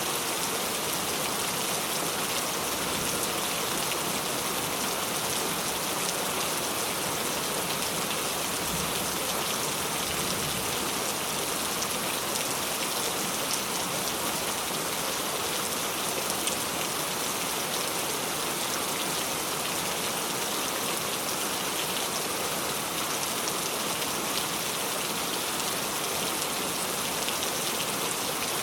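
Steady rainfall, a dense even hiss of drops with scattered individual drop ticks on a hard surface.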